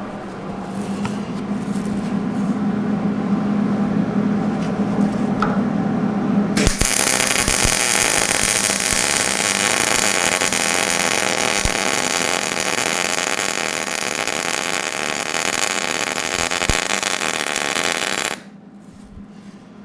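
MIG welder laying one continuous bead on steel tubing: the arc sizzles evenly for about twelve seconds, starting suddenly about six seconds in and cutting off sharply. Before it only a steady low hum is heard.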